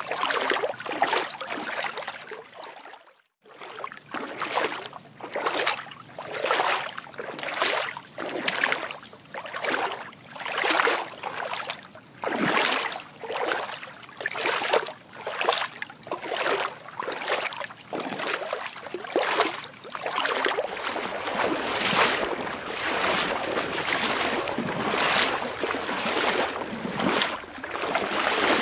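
Water sloshing and splashing in quick repeated swells, roughly one or two a second, with a brief break about three seconds in.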